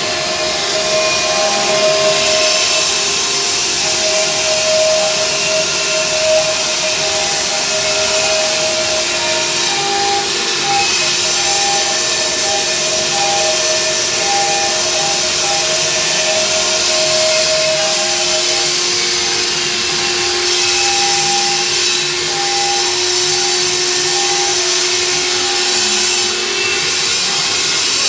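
Stone-carving CNC router running and cutting stone: a steady noisy grinding with a spindle whine whose pitch shifts now and then as it works.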